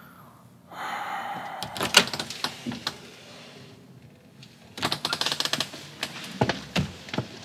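A door being opened and shut: a fast run of clicks about five seconds in, like a handle or latch being worked, then a couple of knocks as the door closes.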